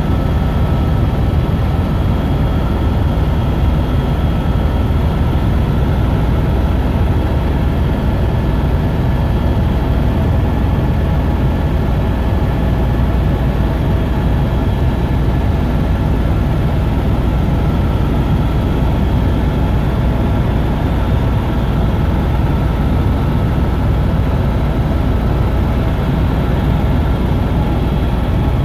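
Helicopter engine and rotor noise heard from inside the cabin in flight: a loud, steady drone with a few faint steady whines above it.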